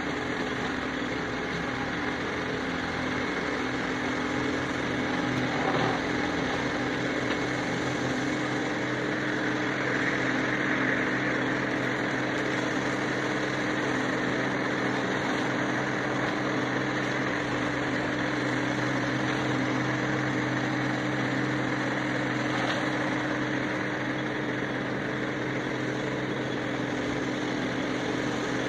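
New Holland 7630 tractor's diesel engine running steadily under load while driving its articulated side-arm mower, a continuous even engine hum with mower noise over it, swelling slightly about ten seconds in.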